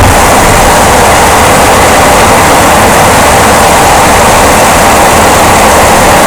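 Loud, steady vehicle running noise from a 2005 Jeep Grand Cherokee 5.7 L 4x4, a dense roar with low rumble underneath, recorded while chasing a drivetrain thump that was traced to a worn front drive axle support bushing and a bad front driveshaft U-joint.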